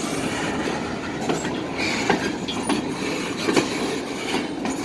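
Freight train cars rolling past close by, their steel wheels running on the rails in a steady rumble, with a few sharp clanks and a brief wheel squeal about two seconds in.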